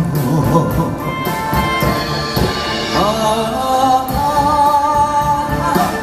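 Instrumental interlude of a slow Mandarin pop ballad played live: a held melody line with sliding notes over a band accompaniment with light percussion.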